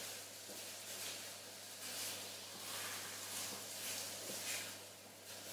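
Chicken breasts frying skin side down in rapeseed oil in a frying pan: a steady sizzle that swells and eases slightly.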